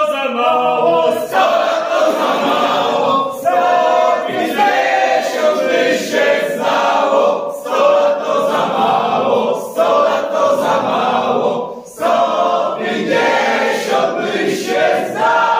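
A group of party guests, men and women, singing together unaccompanied: a Polish birthday toast song, sung in phrases with short breaths between them.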